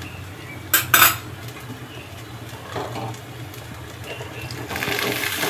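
Two sharp clinks of metal kitchenware about a second in. Near the end, boiled kidney beans pour from a metal bowl into the kadhai of fried masala with a rising hiss.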